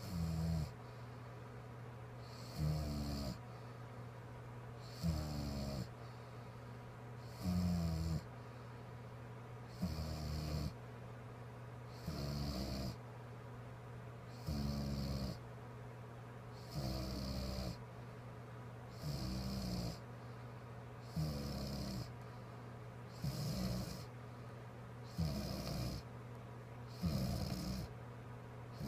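A woman snoring in a steady rhythm, one short rattling snore about every two to two and a half seconds, over a constant low hum.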